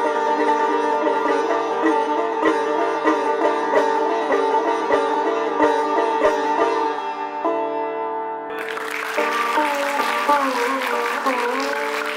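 Sitar played solo without tabla: plucked melody notes over its ringing drone strings, ending on held notes. About two-thirds of the way through, audience applause breaks out, with a sliding sitar note still sounding underneath.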